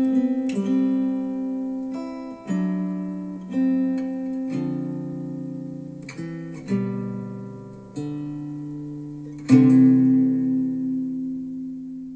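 Acoustic guitar music played back through Wharfedale Denton 80th bookshelf speakers: chords struck every second or two and left to ring out. The loudest chord comes about nine and a half seconds in, and the sound fades away near the end.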